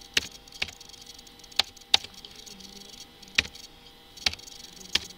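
Computer keyboard keys pressed one at a time, slowly and unevenly: about seven sharp clicks, half a second to a second and a half apart.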